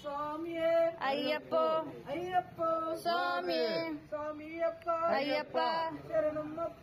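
Devotional singing: a voice sings a chant-like melody, holding long steady notes and gliding between them.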